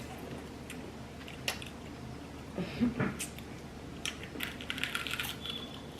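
Close-up eating sounds: deep-fried seafood and onion rings being bitten and chewed, with scattered crunches and sharp little clicks.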